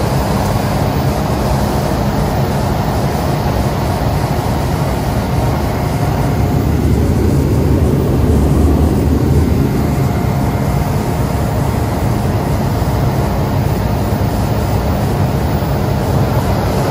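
Cessna Caravan's PT6A turboprop engine and propeller running steadily, heard from inside the cabin. About halfway through, the low rumble swells louder for a couple of seconds.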